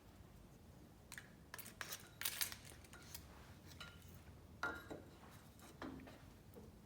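Small parts of an HMI mounting, a spinning ring going onto its post, being handled and fitted: a scatter of short clicks and light clinks, the loudest near the middle.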